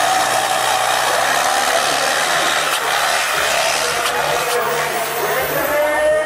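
Modified John Deere 5310 4x4 tractor's diesel engine working hard at high revs while dragging a disc harrow through loose soil, a steady loud running sound with no let-up.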